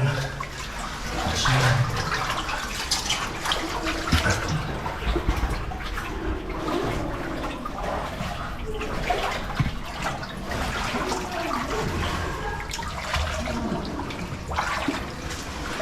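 Scraping, knocking and shuffling of people crawling through a tight rock cave passage, over a steady noise of running water.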